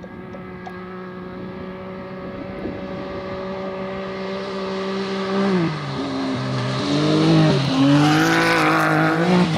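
Side-by-side rally buggy engines (Can-Am Maverick X3 type) running hard over sand, holding a steady high note and growing louder as they approach. About halfway through the pitch drops, then rises and falls several times with the throttle, with a hiss of thrown sand near the end.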